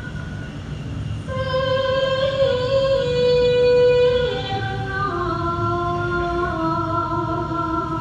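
Slow music with a female voice holding long sustained notes that step down in pitch after about four seconds, over a low steady hum.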